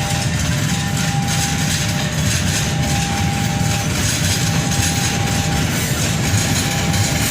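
A train running past close by: a steady loud rush of wheel and rail noise. Over it, a thin high tone sounds in pulses of about a second and a half, with short gaps between them.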